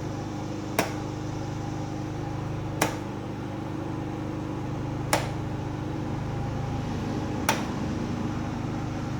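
Predator 3500 inverter generator running steadily under load. Four sharp clicks come a couple of seconds apart as the circuit toggles on a manual transfer switch are flipped on, moving house circuits onto the generator.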